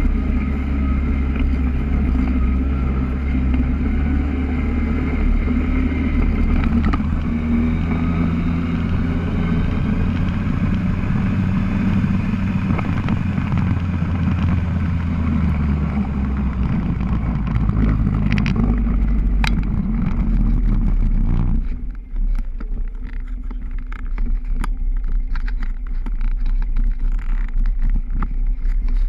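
Polaris quad's engine running under way, its pitch shifting up and down with the throttle. About three-quarters through it drops off suddenly to a low rumble as the quad slows, with scattered light clicks.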